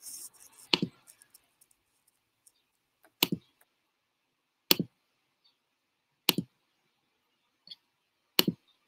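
Computer mouse button clicked five times, about every one and a half to two seconds. Each click is a quick press-and-release pair.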